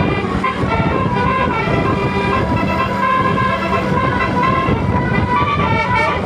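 Bus telolet horn of the Basuri type playing a quick melody of changing notes, with a steady low hum underneath.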